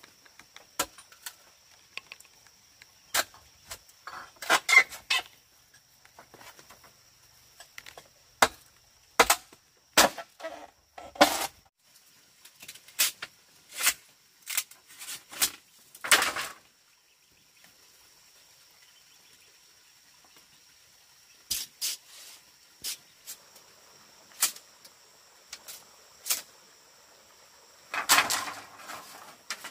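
Irregular hollow knocks and clatter of green bamboo poles being handled, set in place and worked with a machete, with a few longer scraping or rustling stretches between the knocks.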